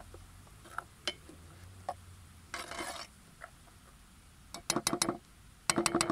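A wooden spoon stirring chopped onions in oil in a metal pot, clacking and scraping against the pot in two quick runs near the end. Earlier there are a few single clicks and a brief rustle.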